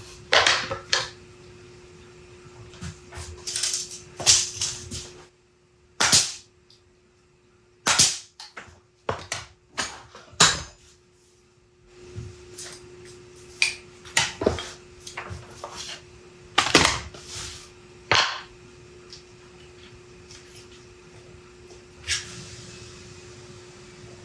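A pneumatic brad nailer firing into plywood box panels during assembly: a dozen or so sharp snaps at irregular intervals, some close together in pairs, over a steady hum that stops for several seconds midway.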